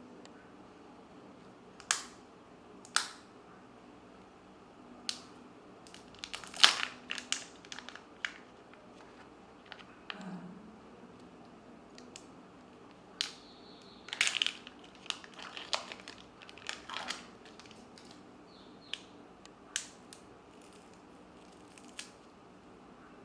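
Kinder Joy eggs being unwrapped and opened: crinkling of the foil wrapper and sharp plastic clicks and snaps, coming in irregular clusters.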